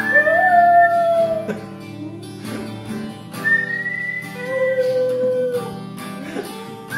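Border terrier cross howling along to a strummed acoustic guitar: one long howl that slides up at the start and holds for about a second and a half, and a second long held howl from about three and a half seconds in, with another beginning right at the end.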